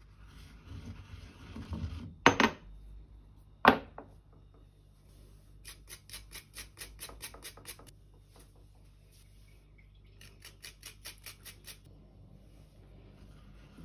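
Stone mortar and pestle grinding spices with a rough scraping, then two sharp knocks of stone on stone. A small handheld grater then rasps fresh ginger in quick strokes, several a second, and after a short pause another run of grating strokes follows.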